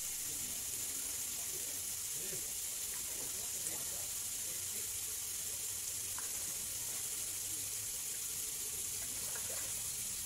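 Steady hiss of running water, even and unbroken, with faint distant voices underneath.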